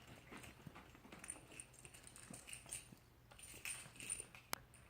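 Faint handling noise of a squishy's packaging being turned over: soft rustles and small scattered clicks, with one sharper click near the end.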